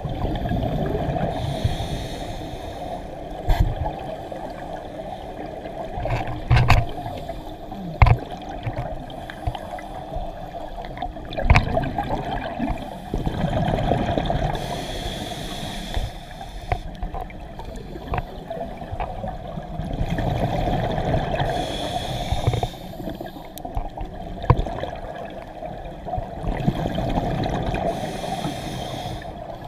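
Scuba diver breathing through a regulator, heard underwater through the camera housing: a hiss and a bubbling rush of exhaust bubbles swell every six or seven seconds, with a low rumble beneath. A few sharp knocks sound against the housing.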